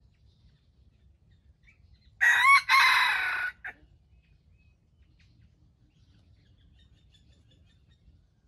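Red junglefowl rooster crowing once, about two seconds in: a short crow of around a second and a half with a brief break near its start, followed by a short extra note.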